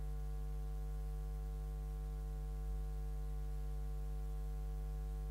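Steady electrical mains hum: a low, unchanging hum with a stack of fainter higher overtones above it.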